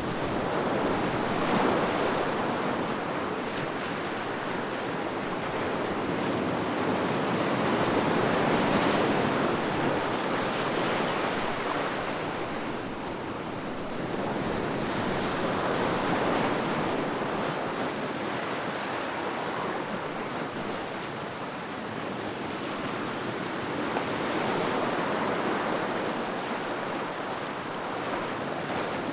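Sea waves breaking and washing on a shore, a continuous surf that swells and eases every few seconds.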